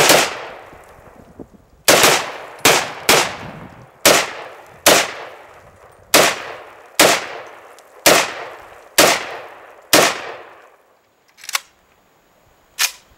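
Rifle fire, .223 and 7.62 rounds, eleven loud shots fired one at a time at an uneven pace of about one a second, each trailing off in an echo. Two fainter, sharper cracks follow near the end.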